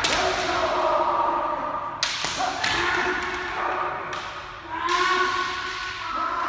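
Kendo sparring: sharp strikes of bamboo shinai on armour and stamping feet on the hard floor, in about three exchanges (at the start, about two seconds in, and near five seconds), each followed by long drawn-out kiai shouts from several fighters.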